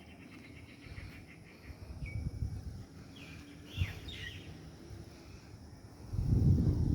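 Small birds chirping in short calls and quick sweeps over a low background rumble. About six seconds in, a much louder low rumble starts.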